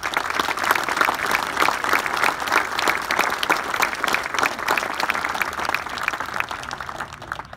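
Crowd applauding, a dense patter of many hands clapping that starts suddenly and dies away near the end.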